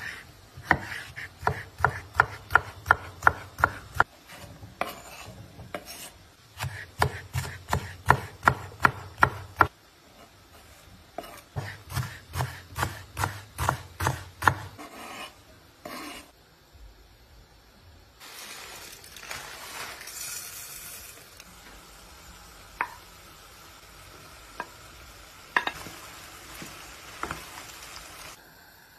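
Kitchen knife chopping vegetables on a wooden cutting board: three runs of quick, even knocks, about three a second, each lasting a few seconds. After the third run come a few scattered knocks.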